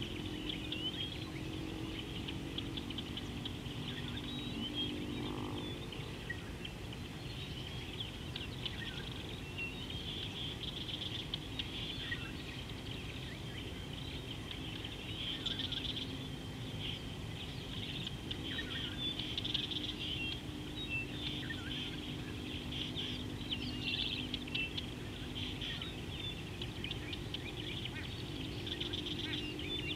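Many birds chirping continuously together in the bush around a waterhole, a dense, busy chorus of rapid high calls, over a faint low steady drone that shifts in pitch now and then.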